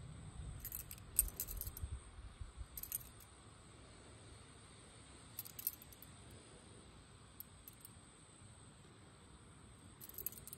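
Silver bangles clinking lightly against each other in a hand as they are turned over: a few faint, scattered metallic clinks.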